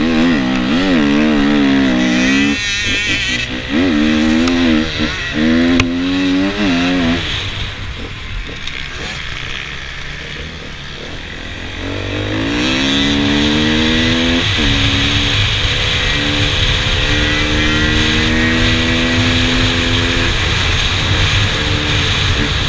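KTM 250 EXC two-stroke enduro motorcycle heard on board, revving hard with the pitch wavering up and down as the throttle is worked, then easing off for a few seconds about a third of the way in. It revs up again through a gear change and runs at steady high revs.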